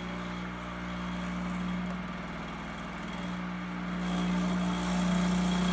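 Breville Dual Boiler espresso machine's vibratory pump humming steadily as it pushes hot water through to warm the machine up. It is quite noisy and gets louder about four seconds in.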